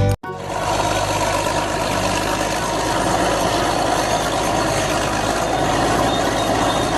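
A vehicle engine running steadily after a brief cut-out at the start: an even, unchanging rumble with a constant low hum.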